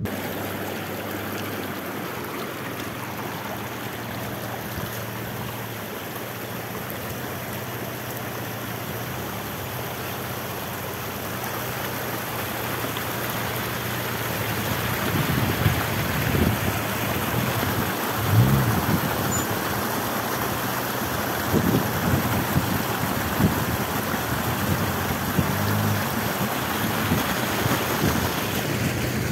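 Off-road vehicle's engine running steadily over a constant rushing noise. From about halfway in come repeated knocks and thumps, typical of the vehicle going over rough, rocky ground.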